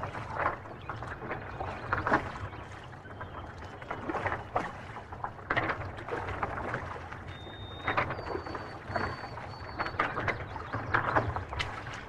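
Fish wheel turning in the river: water splashing irregularly as its baskets dip and lift, over a steady low rumble.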